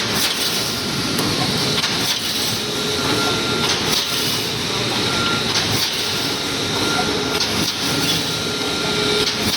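Automatic wire mesh welding machine running, making 3–6 mm panel mesh: a steady, loud mechanical din with sharp clanks every second or two as the machine cycles.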